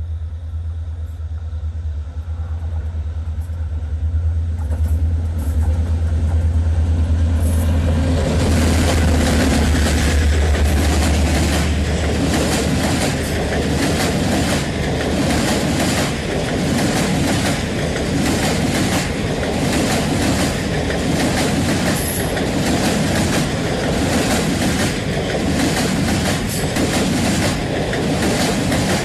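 A train passing close by: a deep, heavy rumble at first, then from about eight seconds in a loud, continuous rush and clatter of wheels on the rails with many rapid clicks over the rail joints.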